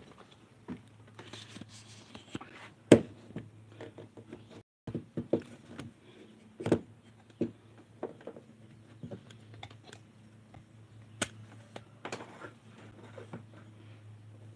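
Scattered knocks, clicks and thumps from moving about and handling things inside a small truck camper, with one sharp knock about three seconds in the loudest, over a steady low hum.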